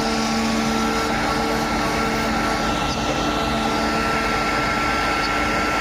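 CNC machine running: a steady mechanical hum and hiss with a high tone held throughout, while lower motor tones switch on and off every half second or so.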